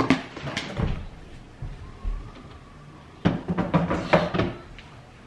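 Kitchen handling noises: a door knocking as it opens or closes and things clattering as they are moved, with a few dull thuds. The busiest clatter comes in the second half.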